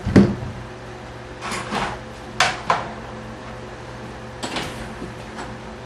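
A few separate light clicks and knocks of small tools and parts being handled on a workbench, over a steady low hum.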